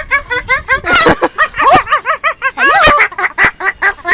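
Parrot chattering in a quick run of short, arched, squawky calls, about six a second, with a few longer sliding notes.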